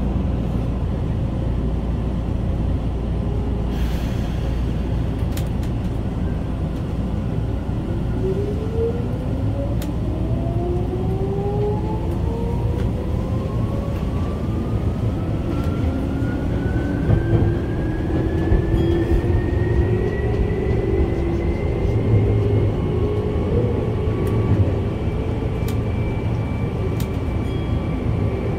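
Tokyu 8500 series electric train heard from inside the front car: the traction motors whine up steadily in pitch as the train accelerates, levelling off near the end, over a constant low rumble of the car running on the rails.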